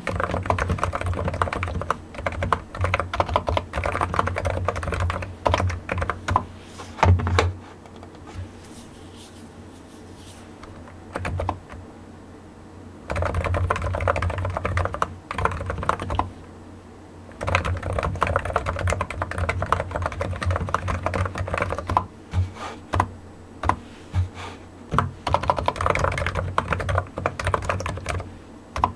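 Typing on a computer keyboard: rapid runs of key clicks in several bursts, with a long pause about a third of the way in and a short one a little past halfway.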